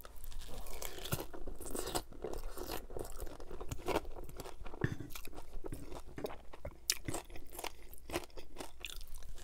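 Close-miked chewing of a mouthful of poutine (fries, cheese curds and gravy), an irregular run of crunching and clicking mouth sounds.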